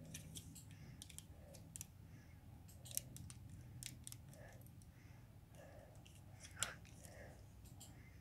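Faint clicks and taps of a plastic Nokia 6610i mobile phone being handled and turned over in the hand, with two sharper clicks about three seconds in and about two-thirds of the way through.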